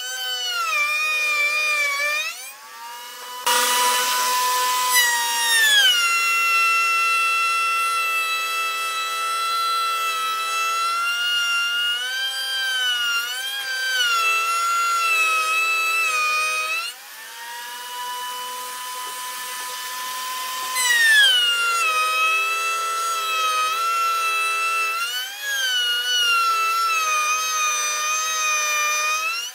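Table saw motor running with a high, steady whine. Its pitch sags each time the blade bites into the hardwood block and climbs back as the cut frees up, repeated over several passes that cut notches, with the loudest cutting noise a few seconds in.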